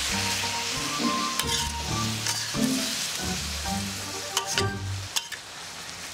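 Bamboo shoot strips sizzling in a hot wok with a little water just added, stirred with a metal spatula that clicks against the pan a few times. The sizzle dies down toward the end.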